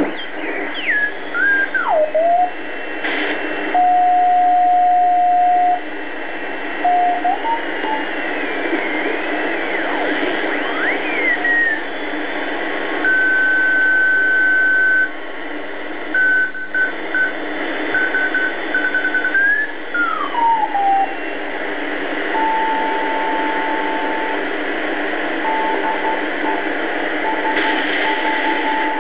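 BC-312G shortwave receiver playing band noise and hiss while being tuned: whistling tones slide up and down in pitch as the dial turns across signals. It then settles on steady beat tones keyed on and off in dots and dashes, Morse code signals, first a higher tone and later a lower one.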